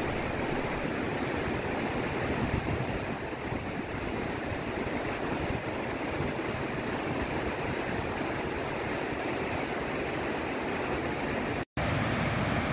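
Water of Rideau Falls pouring over the ledge in a steady, even rush. It cuts out for an instant near the end, then carries on.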